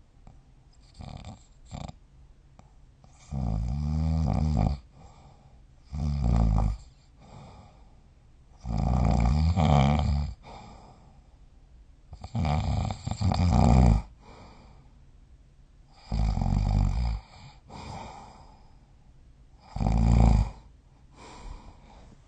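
A sleeping person snoring, one loud snore about every three to four seconds, about six in all. Some snores carry a pitched tone that wavers, with quiet breathing between them.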